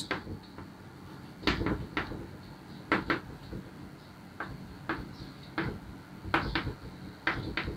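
Chalk tapping and scraping on a blackboard while words are written: a string of short, irregular clicks, often in quick groups of two or three.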